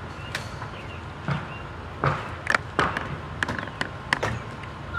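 Irregular knocks and clicks from a pre-hung steel door unit being handled and moved into place, bunched more closely from about two seconds in.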